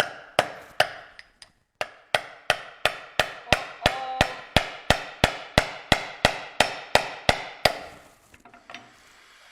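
Hammer blows knocking a stuck, freshly pressed aluminium pan out of the press tool: about twenty evenly spaced strikes, roughly three a second, each with a brief ring. There is a short pause about a second in, and the blows stop near the end.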